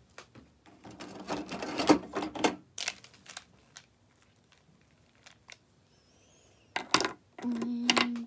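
Plastic felt-tip markers clicking and clattering against each other and the desk as they are picked up and gathered into a bundle in the hand. A dense rattle of clicks about one to three seconds in, a quiet stretch, then a sharp click about seven seconds in.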